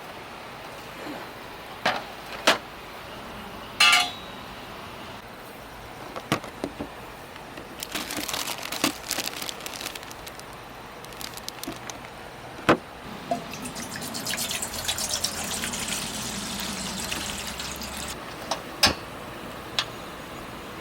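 Camp cooking: liquid being poured and dripping, with several sharp clinks and knocks of dishes and utensils, one of them ringing briefly.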